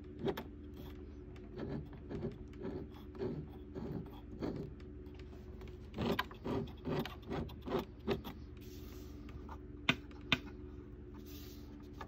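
Bell & Howell 2580 16mm film projector being worked during a function test: a run of mechanical knocks and rattles about twice a second, then two sharp clicks near the end, over a steady hum.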